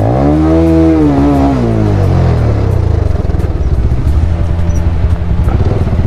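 Motorcycle engine revving up and easing back off over the first two seconds, then running at low revs as the bike crawls over a rough, overgrown dirt track.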